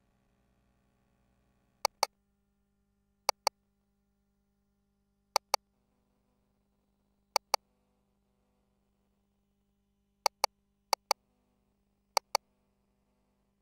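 GE Voluson ultrasound scanner's console clicks: seven sharp double clicks at irregular gaps of one to three seconds, made as measurement calipers are placed across the fetal abdomen. A faint steady hum lies beneath.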